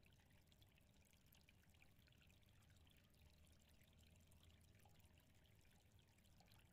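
Near silence: faint hiss and low hum.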